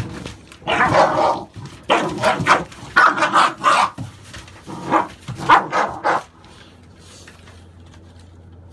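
American Staffordshire bully puppies barking and yipping as they play-fight and tug at a rag, in a string of short outbursts that stop about six seconds in.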